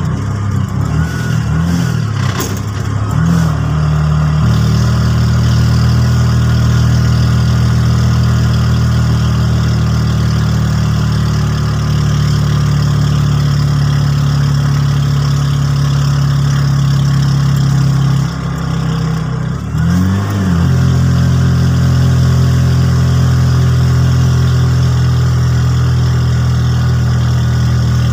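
A vehicle engine running steadily with a low drone. Its pitch wavers in the first few seconds and dips and then climbs again about two-thirds of the way through, as when the vehicle slows and speeds up.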